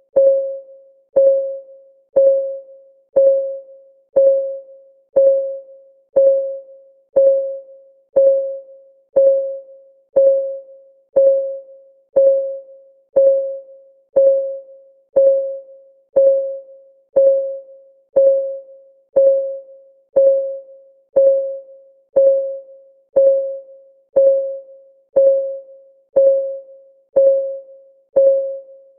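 Countdown timer's ticking: a short pitched electronic tick about once a second, each one sharp at the start and fading quickly, evenly spaced.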